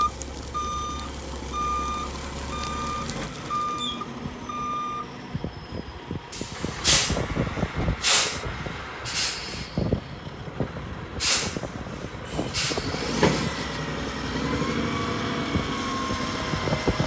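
Dump truck's reversing alarm beeping about once a second for the first five seconds over the running engine, then several loud, short, sharp noises as the truck tips its load of dirt. Near the end the engine pitch rises.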